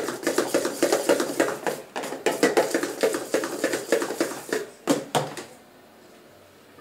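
Hand whisk beating cake batter in a metal mixing bowl, the wires clicking and knocking against the bowl in a quick, uneven rhythm. It stops about five seconds in.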